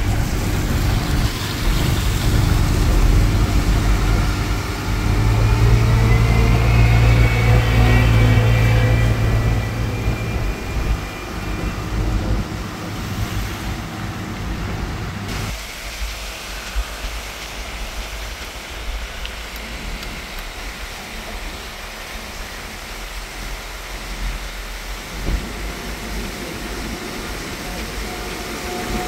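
Engine and tyre noise of a moving vehicle on a wet road, heard from inside the vehicle: a loud low rumble for the first half that drops abruptly about halfway through to a quieter steady road noise.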